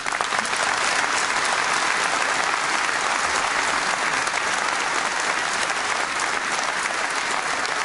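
A large conference audience applauding steadily in a big hall, in response to a line of a leader's speech.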